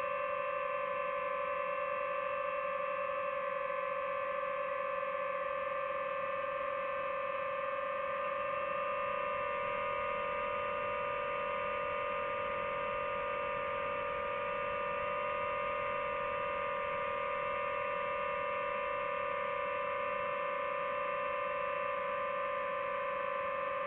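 Quadcopter drone's motors and propellers in flight: a steady high hum with several overtones, its pitch shifting slightly about nine seconds in.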